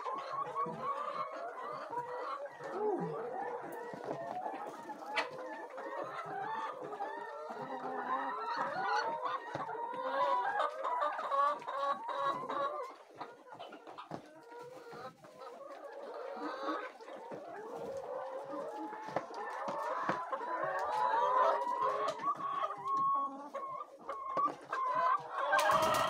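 A flock of brown laying hens clucking and calling continuously, many short wavering calls overlapping, easing off briefly around the middle.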